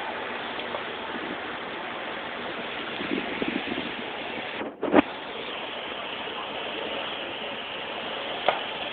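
Steady street and crowd noise with faint voices about three seconds in. Just before five seconds the sound drops out briefly and comes back with a sharp knock, and there is a smaller knock near the end.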